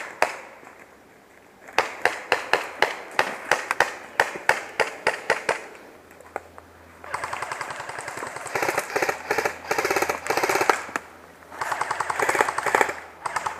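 Airsoft rifle firing: a string of single shots about three a second, then from about halfway on long full-auto bursts with a short break between them.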